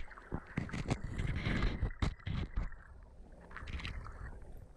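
Garden stream water heard through a submerged camera: muffled sloshing and gurgling over a constant low rumble, with many small clicks and knocks throughout.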